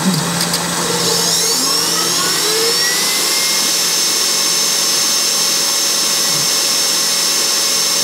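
KitchenAid Pro 600 bowl-lift stand mixer running, its motor whine rising in pitch for about two seconds as it comes up to speed and then running steadily. A loud mixer.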